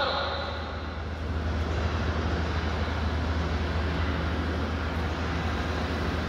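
Water jet spraying across a soaked, soapy silk rug, a steady hiss and splash of water over a constant low motor hum.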